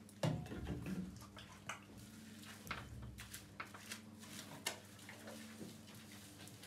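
Bathtub handling noises while a small dog is washed: a thump just after the start, then scattered light knocks and clicks from bottles and the tub, over a faint steady hum.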